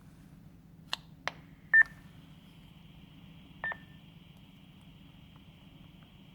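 Baofeng UV-82L handheld radio answering an access call to the GB3BS repeater. Two sharp clicks, then a short loud beep just before two seconds in, then a faint steady hiss from the open repeater channel with a second, quieter beep in the middle. The repeater is responding, so access is good.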